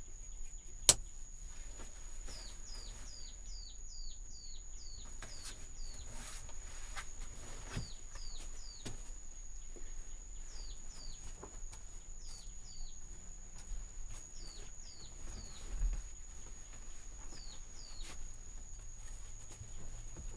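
Outdoor nature ambience: a steady high-pitched insect drone under runs of short, quick falling bird chirps that come in several bursts. A single sharp click about a second in, with faint scattered clicks and rustles.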